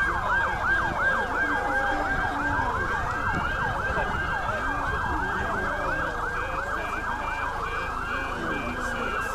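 Several emergency vehicle sirens sounding at once: a fast yelp sweeping up and down about three times a second over slower rising and falling wails, with a short pulsing tone joining in near the end.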